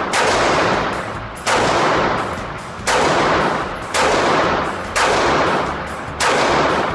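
Glock 26 9mm subcompact pistol fired six times at a steady pace, about one shot every second or so. Each shot is followed by a long echo that dies away in an indoor firing range.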